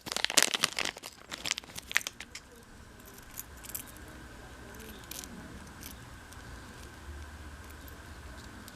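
Packaging crinkling and clicking sharply as it is handled and opened, for the first two seconds or so. After that only a faint steady hum remains, with a couple of light clicks.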